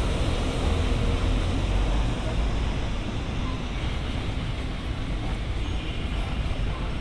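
JR Freight container train rolling past on the rails with a steady running noise, slightly fading in the second half.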